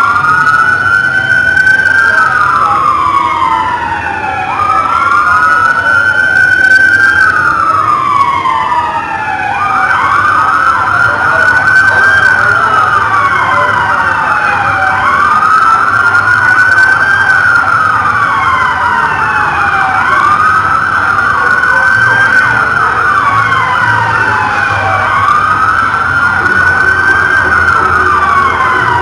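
Police car siren wailing, sliding up quickly and falling slowly in pitch about every five seconds. In the first ten seconds two wails overlap; after that a steady, rapidly pulsing high tone sounds along with the wail.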